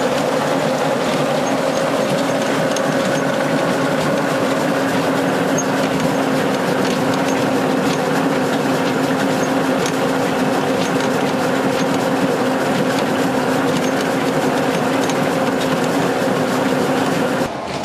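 Old rice mill running steadily: a continuous mechanical rattle over a constant drone, stopping abruptly near the end.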